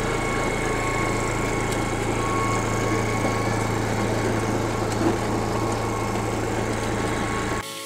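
Small petrol engine of a walk-behind rotary tiller running steadily under load as its tines churn through the soil. The engine sound drops away abruptly near the end.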